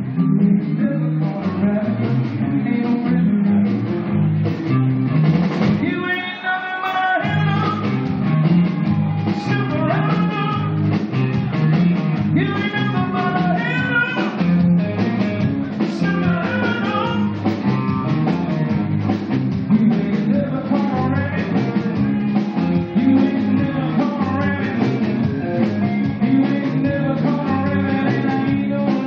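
Live blues-rock band playing: electric guitar leads with bending, wavering notes over bass guitar and drum kit. The bass and drums drop out for about a second around six seconds in while the guitar carries on.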